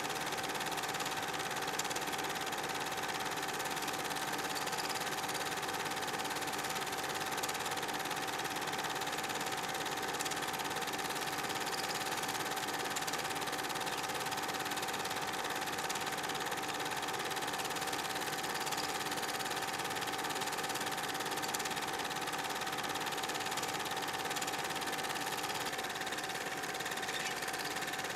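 Film projector running: a steady mechanical whir with a constant whine, unchanging throughout. None of the shot-put action is heard.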